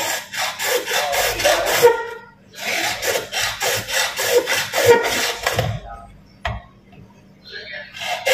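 Hand saw cutting PVC pipe in quick back-and-forth strokes, in two runs with a short pause between them. A single knock follows, and another run of strokes starts near the end.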